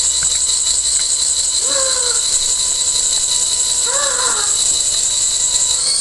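Pixie Flyer toy fairy's small electric motor and spinning wings running with a steady high whine over a hiss, pitch lifting slightly near the end.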